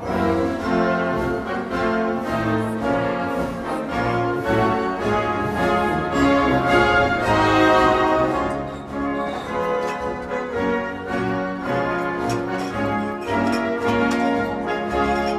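Orchestral background music with brass and strings, playing sustained notes.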